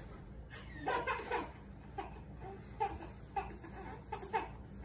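Small children laughing in a string of short bursts, about one every half second to a second.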